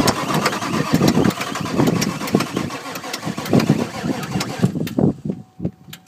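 Starter cranking a 1995 Ford Powerstroke 7.3 L V8 turbo-diesel, which turns over with uneven chugging but does not catch, and cranking stops about five seconds in. It is a hard start, which the owner puts down to a failed glow plug relay, with ether sprayed in and the batteries run low.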